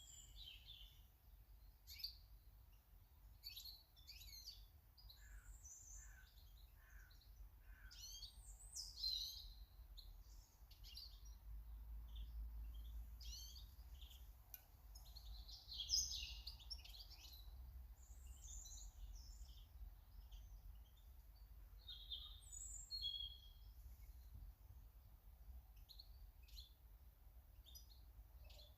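Small garden birds chirping and calling, with many short high notes overlapping, faint and close together, over a low rumble.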